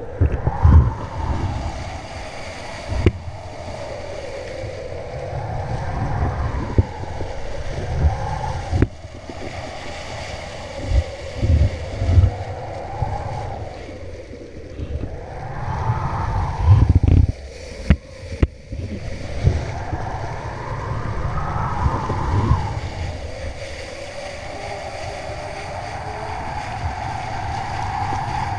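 Wind buffeting the microphone of a kite-line-mounted action camera while a kiteboarder rides, with water rushing and splashing under the board. Irregular low thumps come through the wind, and a wavering hum rises and falls over it.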